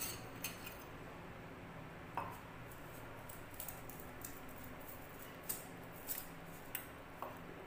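Steel spoon clinking and scraping against a small stainless steel bowl while stirring milk into milk powder to make a thick paste. Faint, sharp clinks come irregularly, about eight or nine of them.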